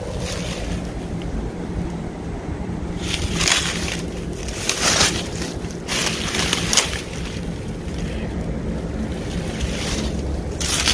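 Footsteps crunching and rustling through dry fallen leaves and brush, in a few loud spells about three, five, six and a half, and ten and a half seconds in, over a steady low rumble of wind on the microphone.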